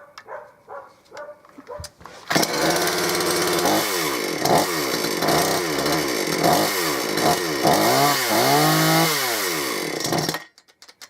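Gardenline GLPC 41 two-stroke chainsaw engine catches about two seconds in and is revved up and down in quick repeated blips, then cuts off suddenly near the end. The cleaned replacement carburettor is being tuned on its low and high mixture screws, with the fuel mixture still uncertain.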